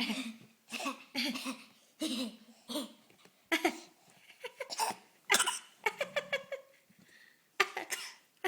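A seven-month-old baby making a string of short, deliberate fake coughs, about a dozen brief bursts with small voiced grunts among them.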